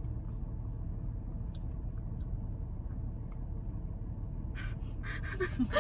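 Steady low rumble of a car's interior, with a few faint ticks. About four and a half seconds in, a short run of noisy sucking through a drinking straw from a thick blended frappuccino.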